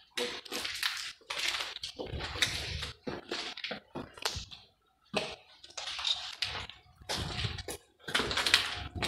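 Footsteps crunching on gritty rubble and broken plaster, about one step a second.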